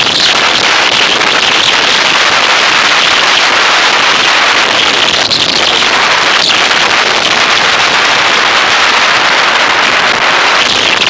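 Loud, steady rushing noise of wind and road vibration hitting the microphone of a handlebar-mounted camera on a bicycle descending at speed, with a couple of brief knocks about halfway through.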